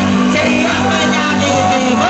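Loud music with a singing voice, played over a big street-carnival sound system, with steady bass notes held under the melody.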